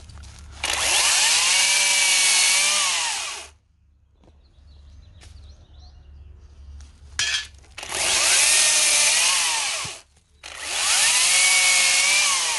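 Makita XCU06Z 18-volt brushless top-handle chainsaw cutting through a branch in three runs of two to three seconds each, the last two close together, the motor whine sagging in pitch as the chain bites the wood and falling away as it lets off. A short sharp sound comes just before the second run.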